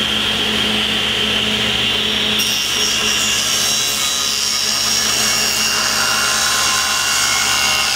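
Table saw and dust collector running at a steady pitch, with a hum and a steady whine. A couple of seconds in, a brighter hiss joins as the blade starts ripping the plywood.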